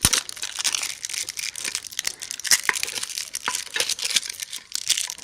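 Packaging crinkling and tearing as it is handled and pulled open by hand, a dense irregular run of crackles, with a sharp knock right at the start.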